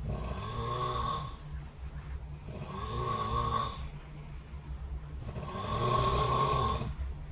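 A person snoring: three snores, each about a second long with a wavering pitch, roughly every three seconds, over a steady low hum.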